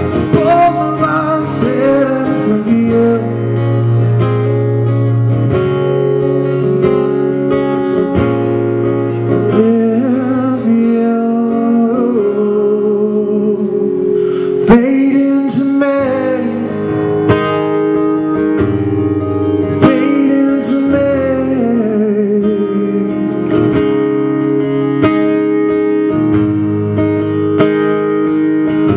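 Live song: an acoustic guitar strummed, with a man singing long, wavering notes over it.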